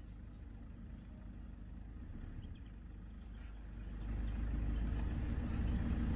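A vehicle engine idling, a low steady rumble that grows louder about four seconds in.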